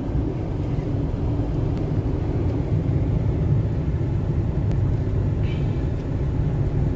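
Steady low rumble of a car driving along the road, heard from inside the cabin: engine and road noise.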